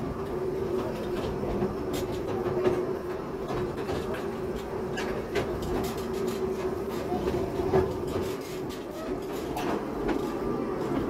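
Narrow-gauge railway carriage running along the track, heard from on board. There is a steady running noise with a steady hum, and irregular clicks and knocks from the wheels over the rail joints.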